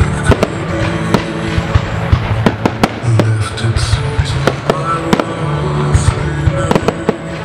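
Aerial firework shells bursting in a string of sharp bangs, about a dozen over seven seconds, over loud music with a heavy bass.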